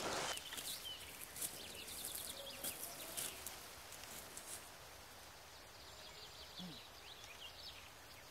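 Footsteps crunching through dry forest leaf litter for the first few seconds, with faint high chirping. The steps then stop, leaving quiet forest ambience.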